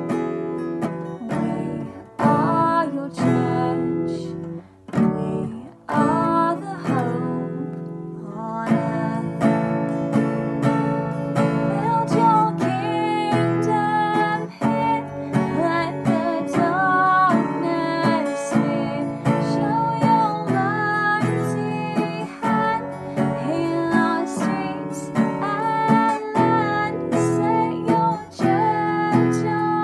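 Acoustic guitar strummed steadily with a voice singing a melody over it: a worship song.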